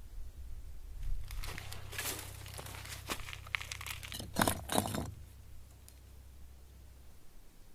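Rustling and crackling of dry material for about four seconds, loudest near the end.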